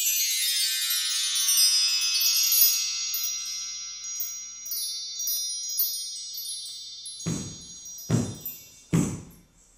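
High chimes ring out together and slowly fade. About seven seconds in, bare feet stamp four times at an even pace on a wooden floor, and each stamp shakes the ghungroo ankle bells into a jingle.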